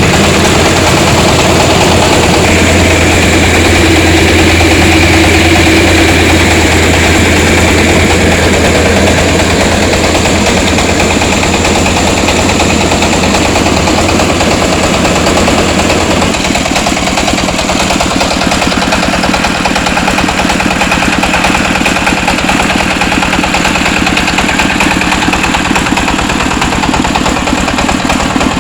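Engine of a three-wheeled mobile rice huller running steadily and loudly. About halfway through, its low hum drops away and the running sound changes character, though the machine keeps going.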